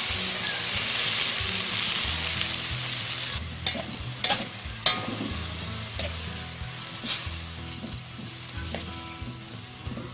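Water poured into a hot wok of stir-frying lamtoro shoots sizzles loudly, then dies down after about three and a half seconds to a softer frying hiss. A metal spatula clinks and scrapes against the wok a few times as the greens are stirred.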